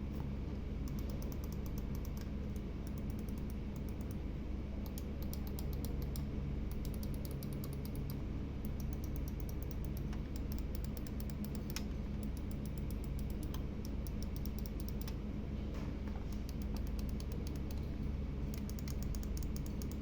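Corsair Darkstar Wireless gaming mouse buttons clicking, in quick runs of rapid clicks broken by short pauses, with a few single clicks between. A steady low hum runs underneath.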